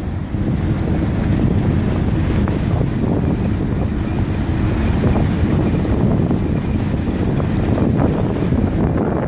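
Wind buffeting the microphone at a ship's side: a steady low rumble with a fainter wash of water noise.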